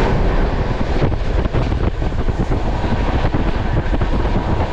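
Wind buffeting the microphone at the open window of a moving passenger train, over the steady running rumble of the carriage on the rails, with scattered faint knocks.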